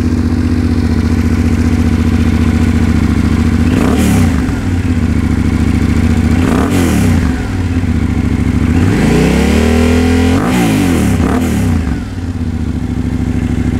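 Yamaha Ténéré 700's CP2 crossplane parallel-twin engine idling through a LeoVince LV One Evo full exhaust system with the quiet core removed, the throttle blipped four times; the third rev is held longer, for about a second and a half.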